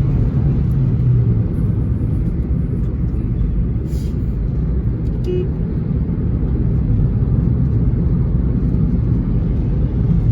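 Steady low rumble of a car being driven, engine and road noise heard from inside the cabin, with a brief click about four seconds in.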